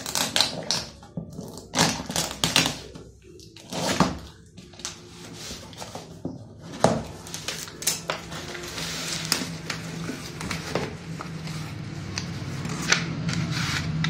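A cardboard carton being unpacked: scissors cutting through packing tape and plastic with sharp knocks and scrapes of the cardboard in the first few seconds, then steady rustling of paper and plastic wrapping as the contents are handled.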